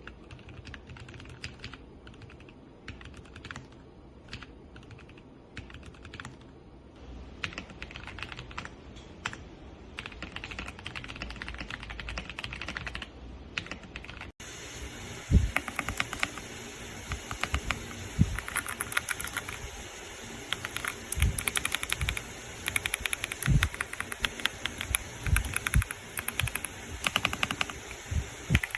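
Typing on a mechanical keyboard: a run of key clicks. About halfway through there is a cut, after which the typing is faster and louder, with deeper thumps as the keys bottom out.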